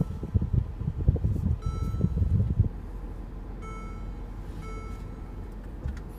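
Three short electronic chimes from the car's dashboard, the middle and last close together, over the low rumble of the car driving. The rumble drops to a quieter, steady level about two and a half seconds in.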